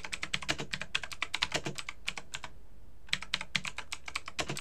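Typing on a computer keyboard: a fast run of key clicks, a short pause a little past halfway, then more typing.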